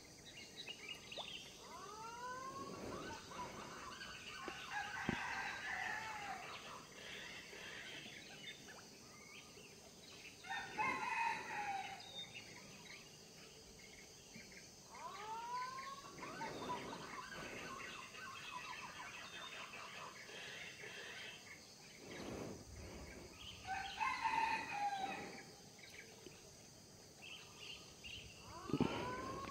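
Roosters crowing several times, each crow opening with a rising note and trailing off over a couple of seconds, against quiet outdoor background noise.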